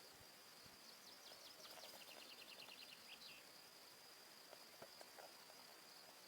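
Faint outdoor ambience: a steady high-pitched insect drone, with a bird's quick trill of short chirps starting about a second in and lasting about two seconds.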